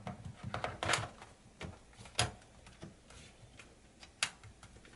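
Laptop's removable plastic battery pack clicking and knocking against the battery bay as it is handled and slid back in. There is a quick run of clicks in the first second, then single sharper clicks about two seconds and four seconds in.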